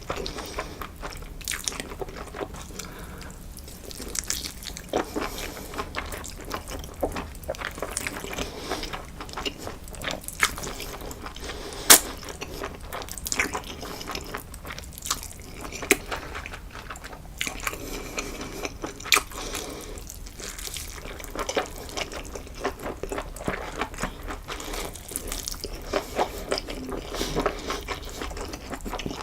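Close-miked eating: wet chewing and mouth sounds with irregular crunches and sharp clicks, the sharpest about twelve seconds in.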